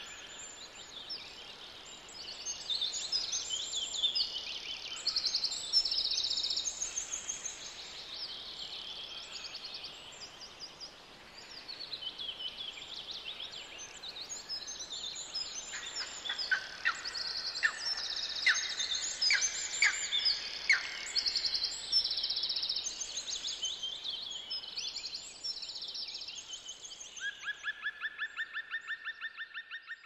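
Several songbirds singing at once, with overlapping chirps, whistles and fast trills of repeated notes. A rapid even trill starts near the end.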